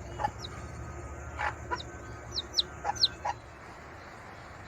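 Chickens: a chick's short, high peeps, each falling in pitch, scattered over the first three seconds or so, mixed with a few lower clucks, over a steady low hum.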